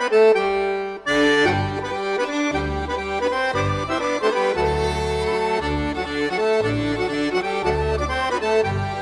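Background music: an accordion playing a tune over a stepping bass, with a short break about a second in.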